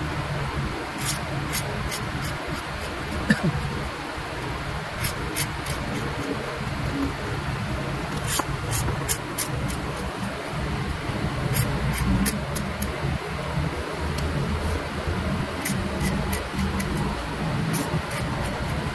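Pointed hand tool scratching lines through the lacquer coat of a turned wooden piece, in short clusters of crisp scratches. A steady low hum runs underneath.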